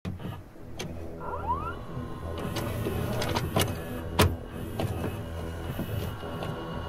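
A small electric motor whirring steadily, with a short rising whine about a second in and a string of mechanical clicks and clunks, the loudest just after four seconds in.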